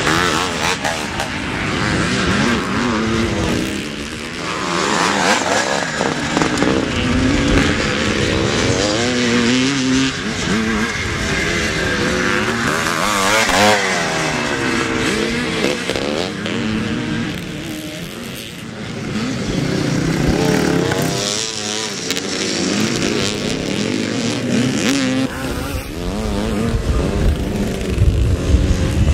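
Classic motocross motorcycles racing, their engines revving up and down as they accelerate and pass, several bikes overlapping, with a sharp rise and fall in pitch about halfway through.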